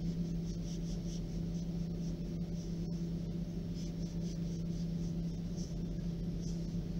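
A steady low hum, with faint soft strokes of a sharp knife cutting slashes into risen bread dough.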